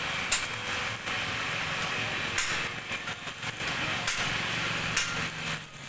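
Electric arc welding on a sidecar's steel frame: a steady crackling hiss, broken by a few sharp clicks and short dips, that drops away near the end.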